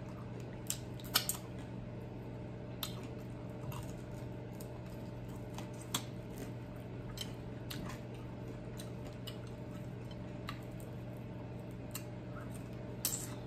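Eating sounds from a chicken wing dipped in sweet and sour sauce: scattered small wet smacks and clicks of chewing and licking sauce from the fingers, over a steady low hum.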